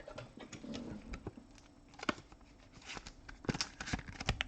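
Trading cards being handled on a table: light rustling and small clicks, with a quick run of sharper clicks in the last second or so.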